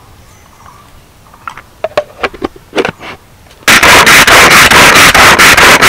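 Pull-cord hand chopper being pulled repeatedly, its spinning blades mincing banana-flower florets in the plastic bowl. After a few light clicks, a loud, fast, even rattle starts about two-thirds of the way in, at about five beats a second.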